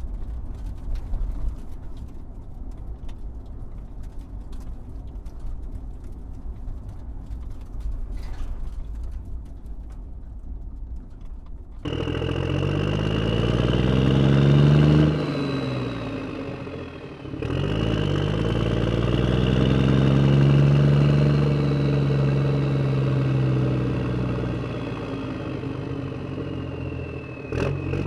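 Low rumbling noise with scattered light clicks, then about twelve seconds in a motor engine starts up loud. It speeds up and slows down twice, with a high whine that glides down in pitch.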